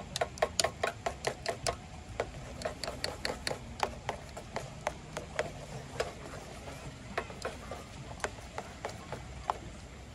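Chopsticks clicking against a metal camping pot while stirring instant noodles: quick taps, about five a second at first, becoming sparser and irregular later on.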